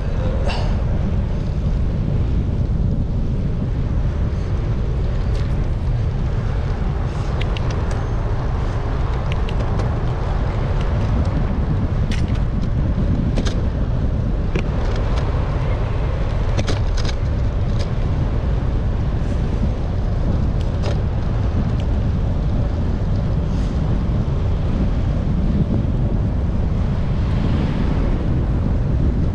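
Wind buffeting a GoPro microphone on a moving bike ride, a steady low rumble, with scattered small clicks and rattles.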